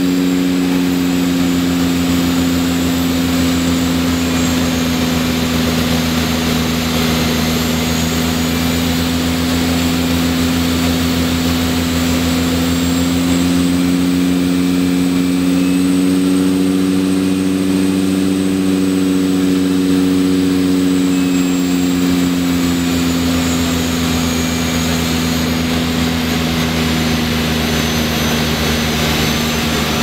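A de Havilland Canada DHC-6 Twin Otter's two PT6A turboprop engines and propellers droning steadily, heard from the cockpit, with a faint high turbine whine. The drone's pitch rises a little midway, then eases back about two-thirds of the way through as the aircraft descends on final approach to land.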